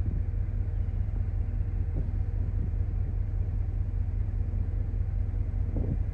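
Steady low rumble of wind buffeting the microphone, with no other clear sound over it.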